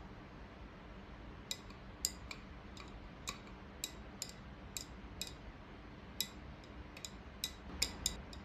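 Drink glass clinking: a string of light, sharp clinks at uneven intervals, a couple per second, starting about a second and a half in.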